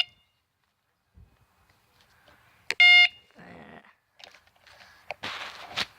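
Battery-powered electronic bicycle horn sounding a short steady-pitched beep right at the start, then a louder beep of the same pitch about three seconds in. A brief lower sound follows the second beep, and handling rustle comes near the end.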